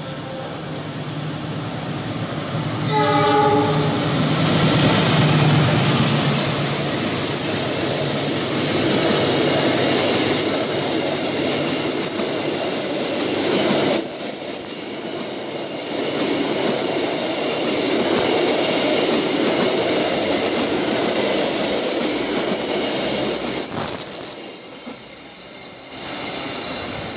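Passenger train sounding one horn blast about three seconds in, then a steady rumble with wheels clattering on the rails as the train runs past. A break partway through is followed by another train passing and clattering away.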